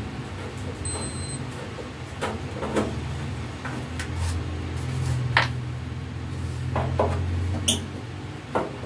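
Screwdriver turning out the screws of an arc welding machine's metal casing: short scrapes and several sharp metallic clicks as the tool works the screws, over a steady low hum.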